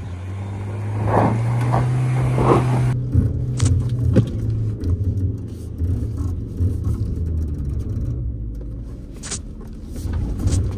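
A four-wheel-drive vehicle's engine running steadily under load while climbing an off-road track. Its note shifts about three seconds in, and a few sharp knocks sound from the tyres and underbody on the terrain.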